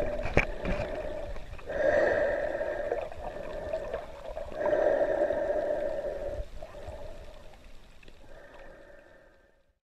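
Muffled underwater camera sound: a snorkeler's breathing through the snorkel in three slow drawn breaths, with water gurgling, fading out near the end.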